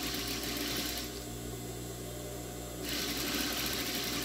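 Electric sewing machine stitching fabric along a zipper, running in two spells: it stops about a second in and starts again just before three seconds.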